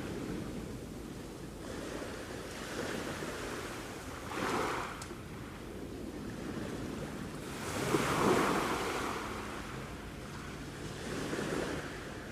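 Sea waves washing in over a steady background wash, swelling about four seconds in, again more loudly around eight seconds, and once more near the end.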